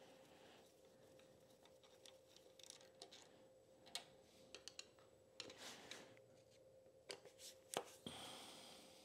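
Faint, irregular clicks and light scrapes of a screwdriver backing out the small screws that hold the oil pump on a Kawasaki KD175 engine. The sharpest click comes near the end.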